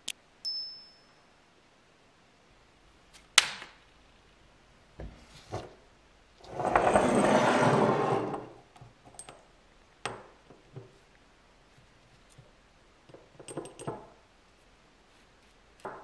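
A mouse click and a short high chime from a subscribe-button animation, then small workshop handling sounds: a sharp click, a noisy rush lasting about two seconds, and a few light taps and rustles.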